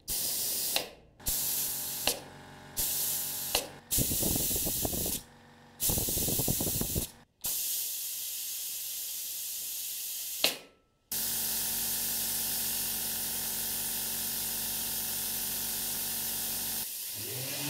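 Hiss of air through a VC-4 vacuum clamp's compressed-air venturi, switched on and off several times with a click from its toggle valve, then held on steadily while a workpiece sits clamped. A rattling scrape comes twice in the first half. Near the end a Metabo random orbital sander starts up with a rising whine.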